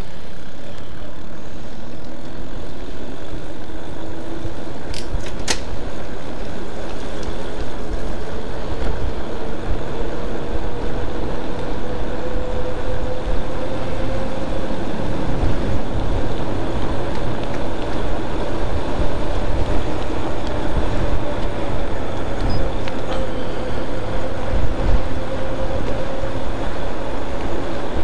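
Electric bike motor whining while riding, the whine rising in pitch over the first ten seconds or so as the bike picks up speed and then holding steady, over a rumble of wind and tyre noise. Two sharp clicks about five seconds in.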